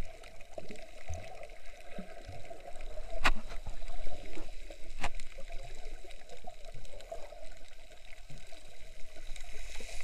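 Water gurgling and trickling, heard underwater, with two sharp clicks about three and five seconds in.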